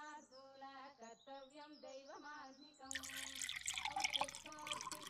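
Milk poured from a steel pan into a mug, a splashing pour that starts about three seconds in and is the loudest sound, over a soft melodic background tune.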